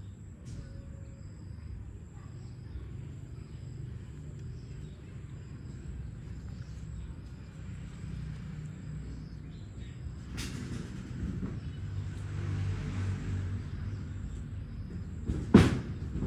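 Low steady rumble of background noise, with a sharp knock about ten seconds in and a louder one near the end.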